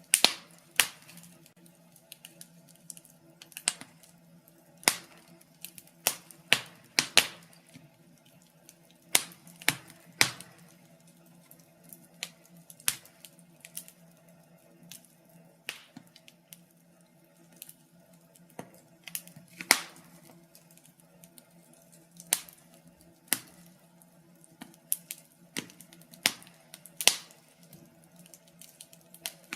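Wood fire crackling in a fireplace: irregular sharp snaps and pops, some in quick clusters, over a faint steady low hum.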